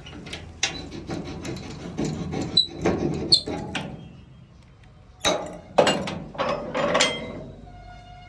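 Steel tailgate latch of a tractor trolley worked by hand: a string of metal clicks and knocks, then a few louder clanks about five to seven seconds in.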